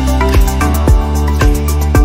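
Background music with a steady beat: sustained pitched notes over a low kick about twice a second.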